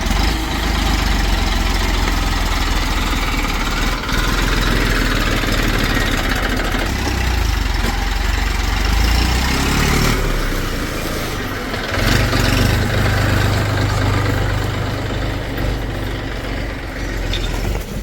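Heavy diesel engine of a backhoe loader running at a work site, with the engine note rising and getting stronger about twelve seconds in, as when the machine takes load.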